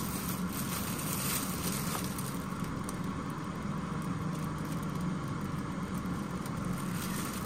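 A steady low mechanical hum, with a plastic piping bag rustling and crinkling as it is handled, most in the first couple of seconds.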